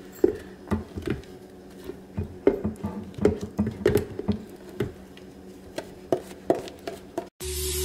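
A plastic spatula scraping and knocking thick blended strawberry mixture out of a plastic blender jar into an ice cream maker's freezer bowl: irregular taps, scrapes and soft plops over a steady low hum. Music starts abruptly near the end.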